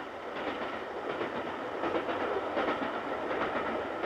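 Steam-hauled express passenger train running at speed, a steady rumble with the wheels clicking over the rail joints.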